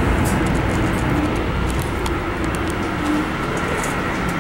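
Cabin noise of a Sapsan high-speed electric train running at speed: a steady low rumble and rushing noise with a faint steady hum, and light clicks now and then.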